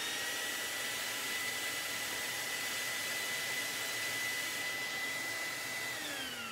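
Shop-vac motor running as a bee vacuum, a steady high whine over the rush of air drawn through its hose. About six seconds in it is switched off and the whine falls in pitch as it winds down.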